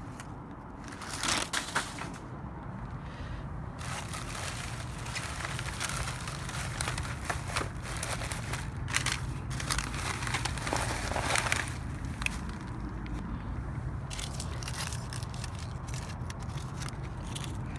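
Trash being rummaged through: plastic bags and packaging crinkling and crushing in irregular handfuls, with louder bursts about a second in and again near the middle.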